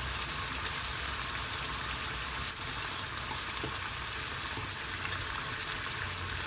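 Pot of water at a steady boil on the stove, blanching mitsuba, with a continuous bubbling hiss and a few faint ticks.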